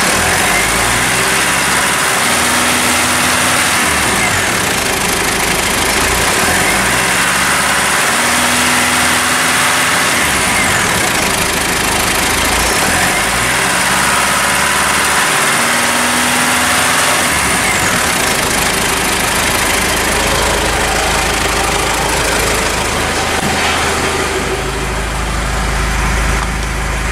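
Mitsubishi Pajero IV's 3.2-litre 4M41 four-cylinder turbodiesel revved up and held at high revs, then let fall back, about three times over. Near the end it settles into a steady low idle.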